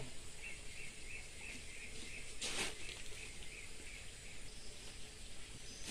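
A small bird calling a run of short, evenly spaced high notes, about three a second, over steady outdoor background noise. A brief burst of hiss comes about two and a half seconds in.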